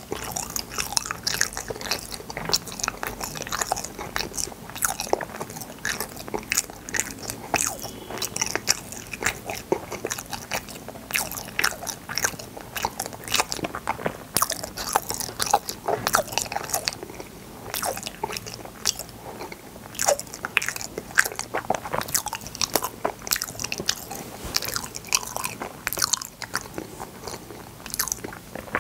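A person chewing fruit-shaped yanggaeng (sweet bean jelly) with the mouth closed: a steady run of wet mouth clicks and chewing sounds.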